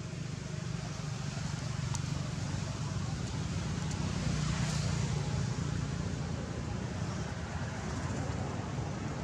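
Low steady rumble of a motor vehicle, growing louder to a peak about halfway through and then easing slightly.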